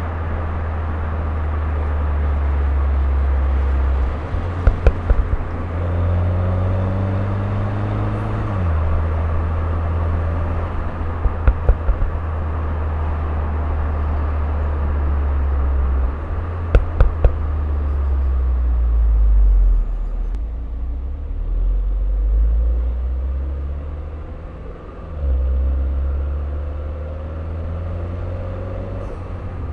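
Turbocharged Mini Cooper engine and exhaust under way. The engine note climbs under acceleration and steps down at gear changes. Three times the driver lifts off and the exhaust gives a quick burst of pops and crackles on the overrun.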